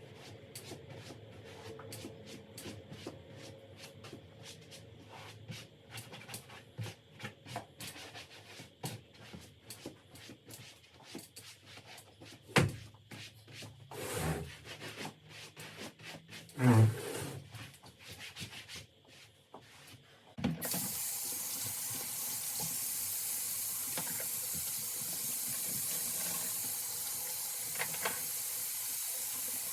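Scattered clicks and a few thumps of household handling, then about two-thirds of the way through a water tap is turned on and runs steadily into a sink.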